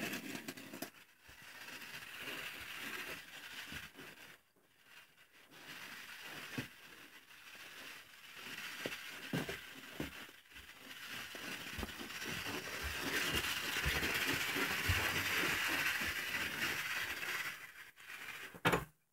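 Small plastic toy train cars dragged on a string, their wheels rolling and scraping across the floor, with scattered clicks and knocks and a louder knock near the end.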